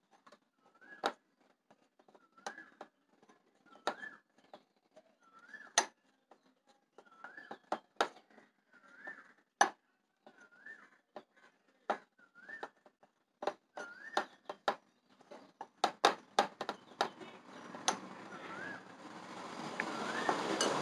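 A metal spoon stirring flour and glue in a glass bowl, with sharp irregular clinks of the spoon against the glass. A bird repeats a short whistled call about once a second in the background, and a rushing noise swells near the end.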